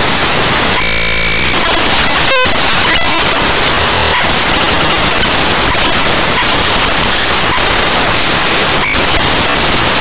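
Raw bytes of the Cinebench 2024.1.0 executable played back as 8-bit mono audio at 32 kHz: loud, harsh static, with a short buzzing tone about a second in.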